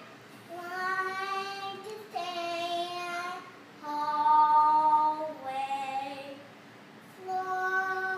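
Three-year-old girl singing long held notes in a handful of short phrases, pausing briefly for breath between them.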